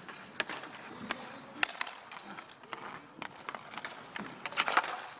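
Irregular sharp clacks of inline hockey sticks hitting the puck and the asphalt rink surface, with a quick cluster of clacks near the end.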